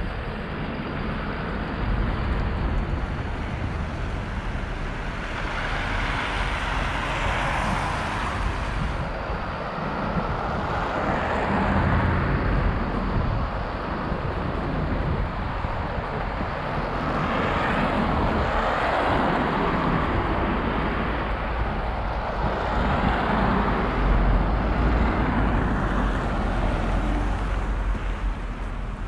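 City street traffic: cars passing one after another, each swelling and fading, over a steady low rumble of wind on the microphone.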